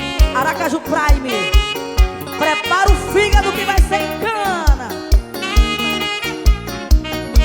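Instrumental passage of a seresta (brega) song: a steady kick-drum beat about twice a second under a lead melody with sliding, bending notes and held chords.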